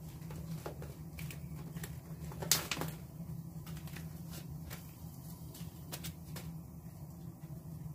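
Corn husks and silk being stripped from fresh cobs by hand: scattered crackling rustles and snaps, loudest a little over two and a half seconds in, over a steady low hum.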